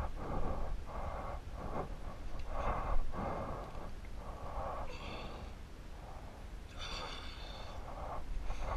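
A person breathing heavily close to the microphone, a run of short noisy breaths in and out.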